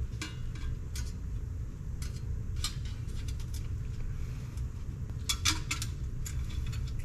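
Light metallic clicks and clinks from a steel oil pan baffle plate being fitted up against the bottom of a 4G63 engine, with a quick cluster of clicks about five seconds in. A steady low hum runs underneath.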